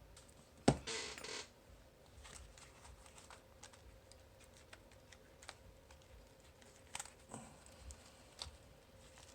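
Small metal lock-picking tools handled at a cruciform bike lock: a sharp click just under a second in, a short rattle, then scattered light clicks.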